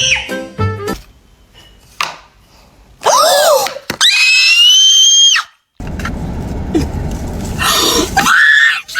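A person screaming at a very high pitch: a short sliding shriek about three seconds in, then one long held scream. After a brief cut to silence comes a rumbling, noisy stretch, and another shrill cry near the end.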